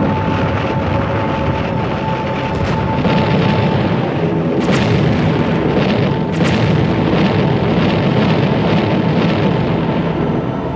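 A continuous din of aerial bomb explosions, with three sharper blasts near the middle, mixed with music.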